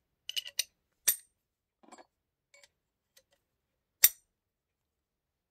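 Metal parts of a hand-made bush drill (steel socket extension bars, sockets and a sliding T-bar) clinking and clicking as they are handled and fitted together. There is a quick run of small clicks, then sharp clinks about a second in and about four seconds in, with fainter taps between them.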